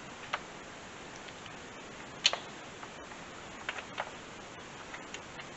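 A few sharp clicks, the loudest about two seconds in and two more close together near the end: AC manifold gauge hose quick-couplers snapping onto the truck's air-conditioning service ports.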